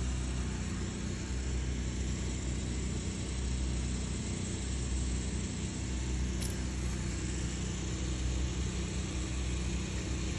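Steady low rumble and hum of machinery running, even and unbroken, with a single light click about six and a half seconds in.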